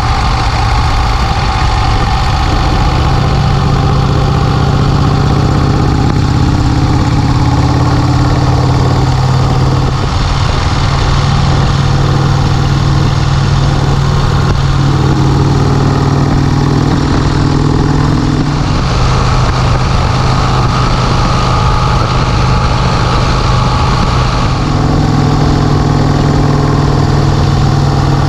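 1951 Vincent Rapide's 998 cc V-twin engine running on the road at a steady speed, its note shifting a few times as the revs change.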